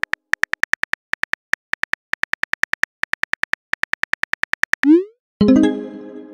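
Simulated phone-keyboard typing: a fast, even run of key clicks while a text message is typed out. About five seconds in, a short rising swoosh as the message sends, then a pitched chime that rings and fades.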